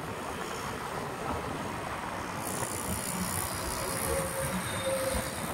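Steady road traffic noise heard from a moving vehicle, with a higher hiss joining about halfway through.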